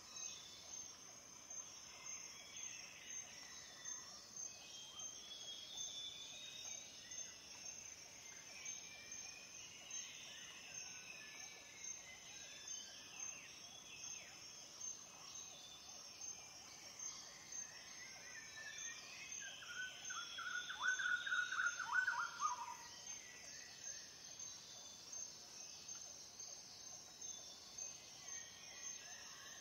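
Faint nature ambience: a steady, high, pulsing trill with scattered chirps, and a louder run of quick calls about twenty seconds in.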